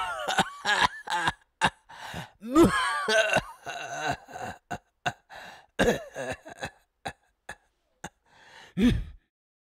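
A string of human coughs and sharp gasping breaths, some of them voiced, that stops abruptly about nine seconds in.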